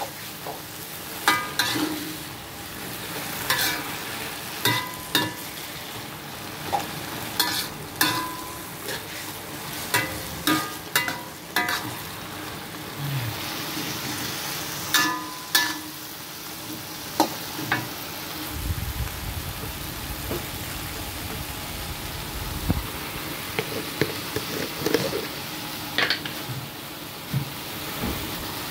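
Leafy greens sizzling in a hot wok while a metal spatula stirs them, clanking and scraping against the pan. The ringing clanks come about every second through the first half and thin out after that.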